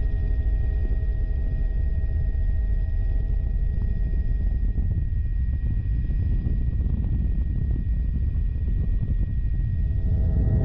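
Bell 206L-4 helicopter in a climbing departure, heard from a camera carried on the aircraft: a steady heavy rumble of rotor and rushing air, with a thin steady high turbine whine. A set of lower humming tones fades out about halfway through.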